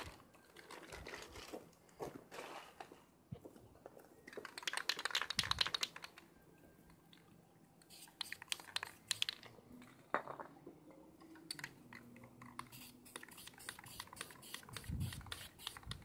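Aerosol spray paint can being shaken, its mixing ball rattling in several runs of quick clicks, between short hisses of paint spraying.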